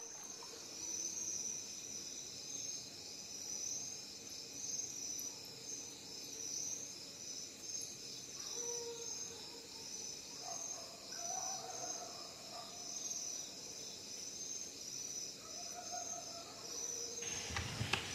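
Night-time cricket chorus: a steady, pulsing high-pitched trill, with a few faint low calls partway through.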